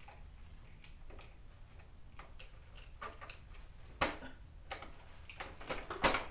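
Scattered small clicks and taps of plastic motorcycle fairing panels and their fasteners being worked loose by hand, with a sharp knock about four seconds in and a cluster of louder knocks and rattles near the end as the panel is pulled on.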